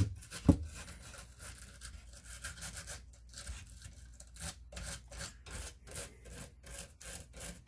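Brush scrubbing a circuit board wet with isopropyl alcohol: a steady run of short scratchy strokes, with a knock about half a second in.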